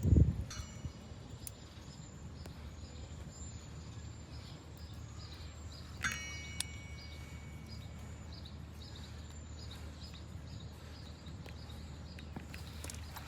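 Brake pads being handled: a low thump at the start, then two short metallic clinks that ring briefly, about half a second and six seconds in. Faint insects chirp in the background.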